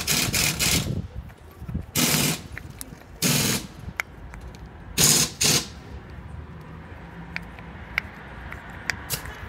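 A worn steering tie rod's ball joint being worked back and forth by hand, rattling and scraping quickly in the first second, then in a few separate scraping bursts. The clatter comes from the joint's play, caused by rust after its boot tore and let water in.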